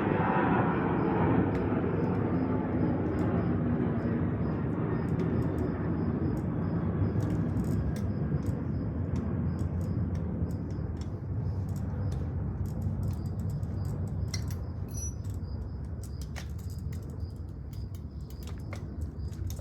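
A car engine running with a steady low rumble that slowly fades as the car pulls away, with faint light clicks of tool work on the bike over it.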